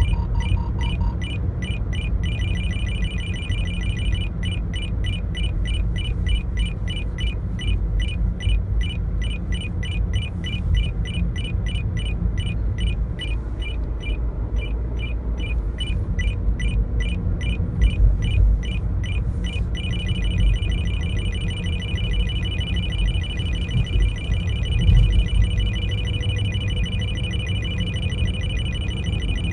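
Radar detector alarm beeping at the ISKRA-1D police radar signal: short high beeps about three a second, which about two-thirds of the way in turn into a nearly continuous rapid beeping as the alert intensifies. Steady low car rumble runs underneath.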